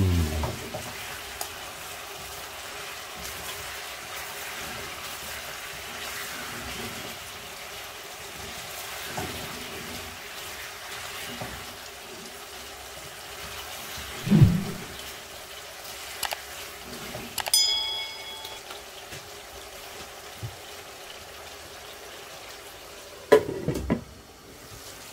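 Chicken pieces sizzling gently in oil and tikka masala in a nonstick frying pan, simmering over low heat. A few knocks and a short ringing clink come from the spatula against the pan, and near the end there is a louder knock as a glass lid is set on the pan.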